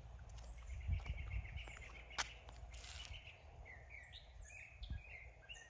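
Birds chirping, a string of short calls coming thicker in the second half, over a low rumble with a few soft thumps and one sharp click a little over two seconds in.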